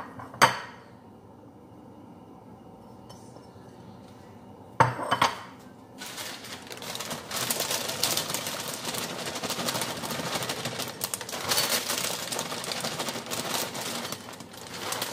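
A ceramic bowl clinks sharply just after the start, and again with a knock about five seconds in. Then a plastic bag of shredded cheese crinkles and rustles steadily while cheese is shaken out of it.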